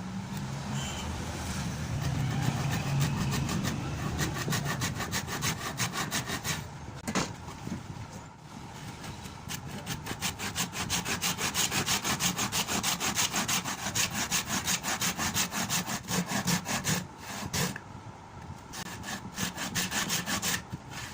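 A hand tool working the wood of a cricket bat in rapid, even back-and-forth strokes, sawing or rasping. It becomes steady and rhythmic about six seconds in, pauses briefly near the end, then resumes.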